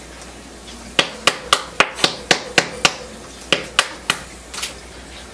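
A quick run of about a dozen sharp, hard knocks, roughly four a second, with a short break about two and a half seconds in.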